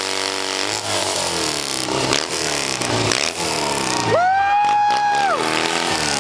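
Motorcycle engine held at high revs in a burnout, revving up and down repeatedly so its pitch rises and falls. About four seconds in, a loud held high note lasting about a second and a half rises over it.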